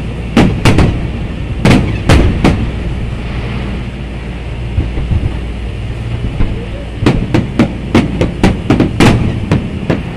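Aerial firework shells bursting in a display: sharp bangs in quick clusters over a steady low rumble. There is a lull in the middle, then a fast run of bangs in the last few seconds.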